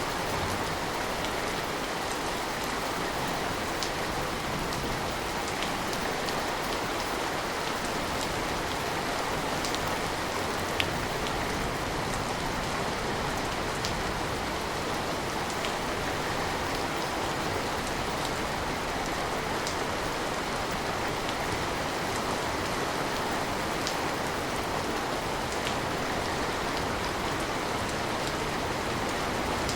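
Steady rain with scattered drips and drop ticks, one sharper tick about eleven seconds in.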